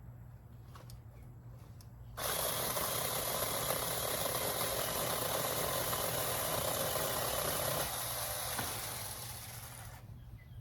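A steady hissing rush of noise that starts abruptly about two seconds in and dies away near the end.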